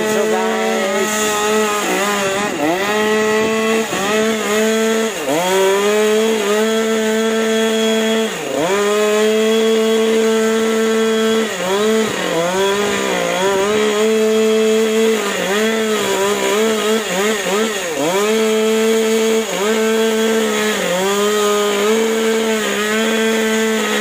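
Chainsaw running at high revs, its pitch dropping again and again as it bogs under load cutting into wood, then climbing back.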